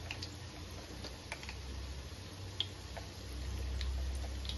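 Kebabs shallow-frying in oil in a frying pan: scattered light ticks and pops, with a wooden spatula nudging them, over a low steady hum that swells a little about three seconds in.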